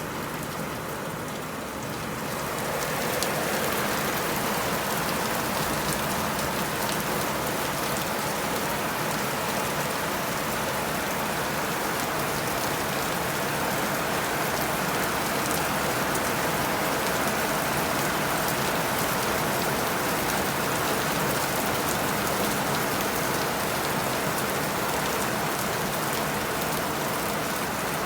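Steady rain falling and pattering on surfaces, a dense even hiss with fine drop ticks, growing a little louder about two seconds in.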